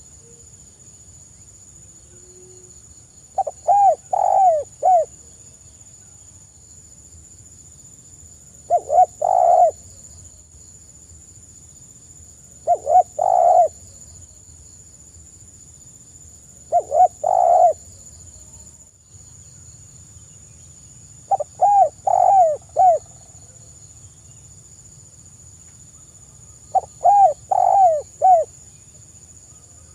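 Spotted dove (tekukur) cooing: short, soft phrases of two to four cooing notes, repeated about every four to five seconds, six times.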